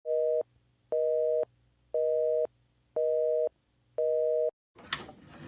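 Telephone busy signal: five half-second beeps of a steady two-note tone, one a second, with dead silence between them.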